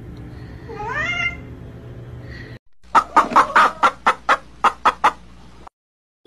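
Chickens clucking in a quick series of about ten sharp clucks, roughly three a second, which then cut off abruptly. Before them comes a fainter stretch with a short rising call about a second in.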